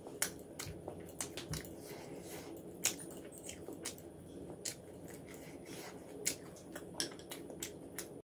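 Close-miked chewing of a mouthful of fried rice, with wet mouth clicks and lip smacks, while fingers squish and mix rice on a banana leaf. Frequent sharp irregular clicks throughout.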